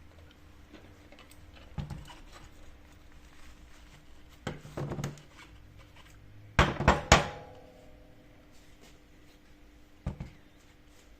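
Scattered knocks and clanks of hard objects being handled and set down. The loudest is a quick run of three ringing strikes about seven seconds in.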